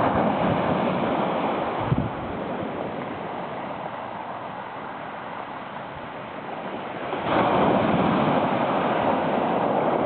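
Small waves breaking and washing up a pebble beach: one breaks at the start, the wash fades for a few seconds, and the next wave surges in about seven seconds in.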